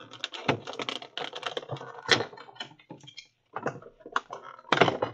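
Stiff clear plastic packaging from a Pokémon card collection box being handled and pulled apart: rapid irregular crackling and clicking, with a sharper snap about two seconds in and another near the end.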